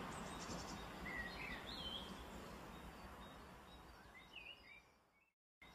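Faint outdoor ambience: a steady rushing background noise with a few short bird chirps over it, the whole fading away near the end.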